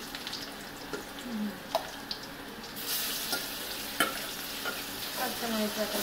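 Sliced onions frying in oil in a metal karai on a gas flame, sizzling steadily, with a metal spatula scraping and knocking against the pan a few times. The sizzle grows louder about three seconds in.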